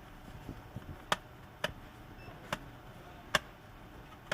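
Five sharp, separate clicks at uneven intervals from laptop parts being handled and worked loose during disassembly.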